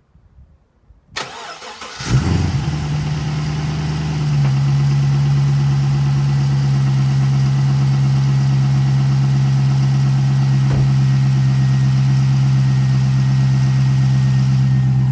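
Pontiac GTO's LS2 6.0-litre V8 being started: a brief crank, the engine catching about two seconds in, then settling a couple of seconds later into a steady idle, with the new camshaft position sensor fitted.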